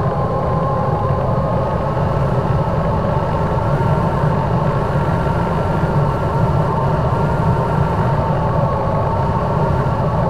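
Electric motor and three-blade 9x6 propeller of a SkyWalker RC plane in flight: a Turnigy Aerodrive SK3 35/36 1400kv brushless motor. It gives a steady whine with several held tones, heard through the onboard camera's microphone over a heavy rumble of wind.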